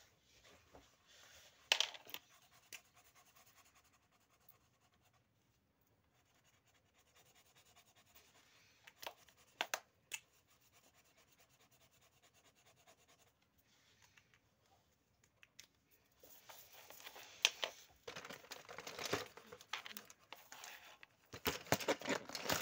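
Felt-tip markers rubbing and scratching on paper as drawings are coloured in, with paper rustling and a few sharp clicks of markers. The scratching and rustling get busier in the last few seconds.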